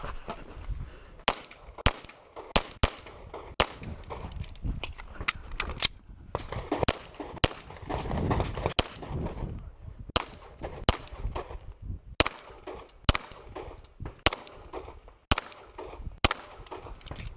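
Handgun shots fired in quick strings, about twenty of them, some in close pairs and others spaced irregularly, with a lull of fewer shots in the middle, as in a shooter firing through a USPSA stage.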